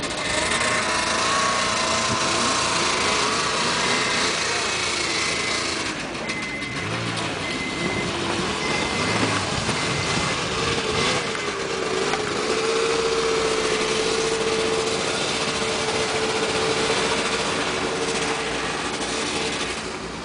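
Several snowmobile engines running and revving as the machines pull away, their pitch rising and falling. From about halfway through, one engine holds a steady note.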